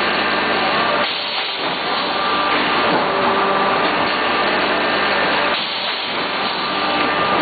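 PS foam food container forming machine running: a steady mechanical hum with hiss and a few steady tones. It dips briefly twice, about a second in and again near the end.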